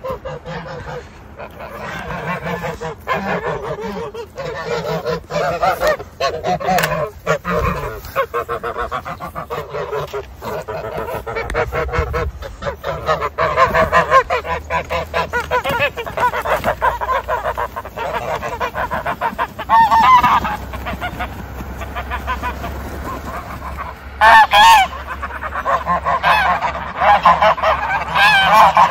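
Domestic geese honking continuously, many calls overlapping, with a few louder honks in the second half.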